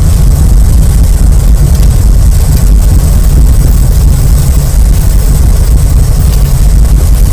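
Sound effect of a Doctor Strange portal green-screen clip playing back: a loud, steady, dense rumbling noise, heaviest in the bass.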